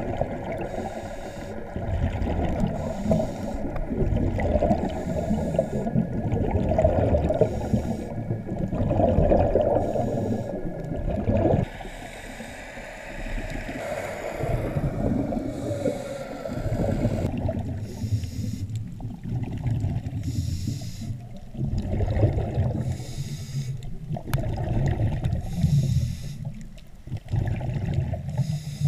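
Scuba diver's breathing, recorded underwater: bubbles rumbling and gurgling in repeated swells a few seconds apart, with quieter gaps between.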